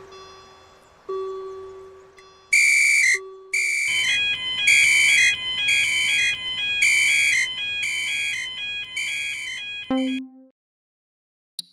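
Japanese railroad-crossing alarm ringing its "kan-kan" tone about once every 0.7 seconds over a quick, high electronic tune, after a few single low notes. It cuts off suddenly about ten seconds in, leaving silence.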